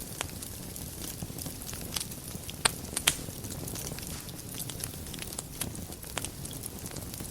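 Wood fire burning in a fireplace: a steady low rumble and hiss with scattered crackles and sharp pops, two louder pops about three seconds in.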